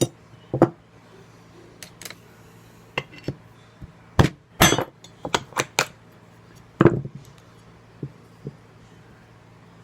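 Irregular sharp clinks and knocks of small metal tools and fan-motor parts being handled, about a dozen in all, the loudest in the middle, over a low steady hum.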